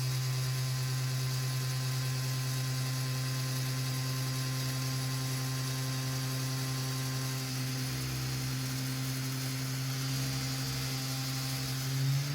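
Electric heat gun running steadily: its fan motor gives a constant low hum and whir with an airy hiss over it, swelling briefly near the end.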